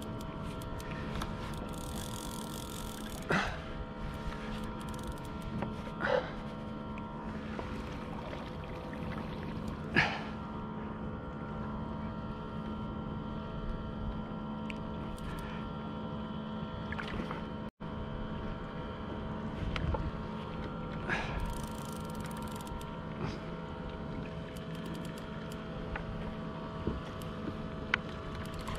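Water lapping against a plastic fishing kayak's hull over a steady hum, broken by a few short, sharp knocks and splashes, the loudest about ten seconds in.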